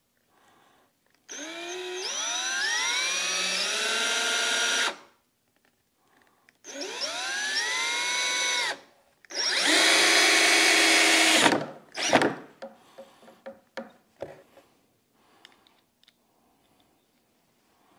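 Cordless drill driving screws into a particleboard canoe form, in three runs. In the first two the motor whine climbs as the drill speeds up, and the third holds steady at a higher pitch. A couple of sharp knocks follow just after the last run.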